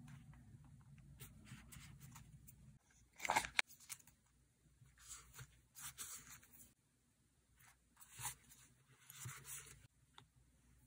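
Paper rustling and crackling as stickers and printed text strips are handled and pressed onto a kraft-paper journal page, in short irregular bursts, the loudest a sharp crackle about three seconds in.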